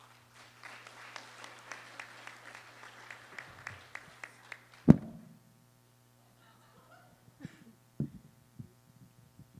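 Audience applause for about five seconds, ending with a single loud thump on the podium microphone, followed by a few softer knocks as the microphone is adjusted.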